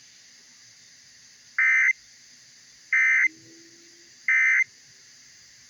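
Emergency Alert System end-of-message signal over the radio: three short, loud, identical bursts of screechy digital data tones, about a second and a half apart, over faint radio hiss. It marks the end of the alert message.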